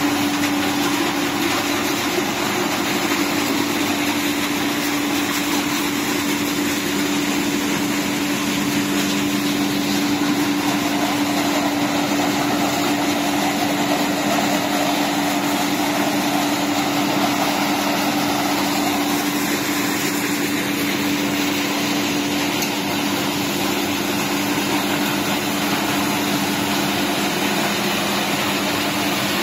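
PET bottle recycling line running: electric-motor-driven conveyors and machinery giving a steady machine drone with one constant pitch.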